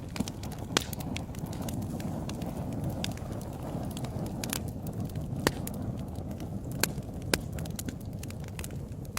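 Wood fire crackling in a fireplace: a steady low rush of burning with scattered sharp pops, the loudest about halfway through.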